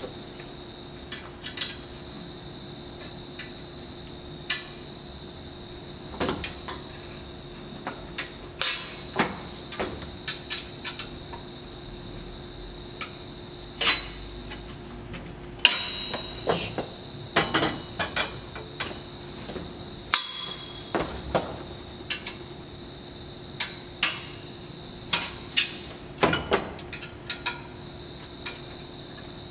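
Irregular sharp metallic clicks and knocks from the parts of a portable metal chin-up bar being handled and fitted together, at times several a second, over a faint steady high-pitched whine and hum.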